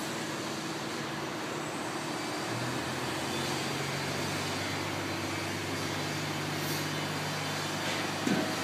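Construction machinery engine running steadily, its low hum strengthening about two and a half seconds in, with a brief clunk near the end.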